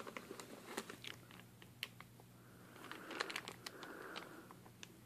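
Thin plastic shipping bags crinkling and crackling faintly as hands lift and handle them in a styrofoam box, in scattered sharp crackles.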